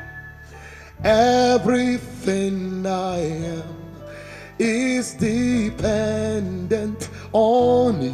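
Slow worship music: a voice singing held, gliding phrases of a second or two over steady instrumental accompaniment.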